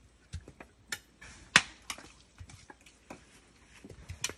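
Irregular sharp knocks and cracks of husked coconuts being handled and split, about eight in all, the loudest about a second and a half in.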